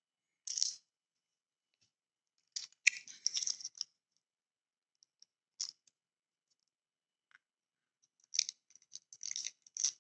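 Light clicking and rattling of small screws and plastic model-kit parts being handled, coming in short, separate bursts: about a second in, around three seconds, briefly near the middle and again near the end.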